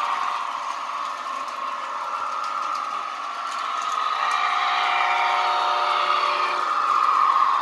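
Model diesel locomotive running along its track: a steady mechanical hum with several held tones, growing louder in the second half as the train approaches.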